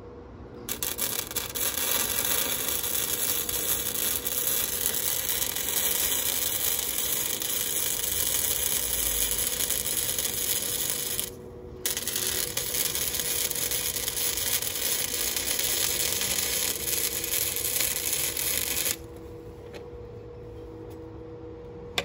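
Electric welding arc crackling steadily as a metal frame is welded, in two runs of about ten and seven seconds with a brief stop between. A faint steady hum runs underneath.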